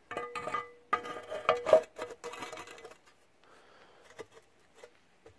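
Metal clinks and scraping as the metal reservoir cover is fitted down over a GM power steering pump. A short ringing tone sounds under the clinks, mostly in the first three seconds, and after that there is only light handling.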